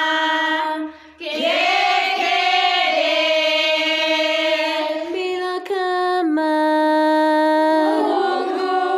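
A group of voices singing a greeting in long held notes, with a short break about a second in and a few changes of pitch later.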